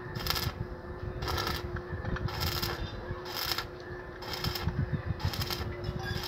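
Electric arc welding on a steel tube frame: short bursts of arc crackle, about one a second, over a steady hum.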